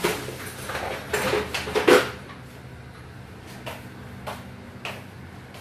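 Kitchen handling noises: a burst of rustling and knocking in the first two seconds, loudest just before two seconds in, then a few scattered sharp clicks.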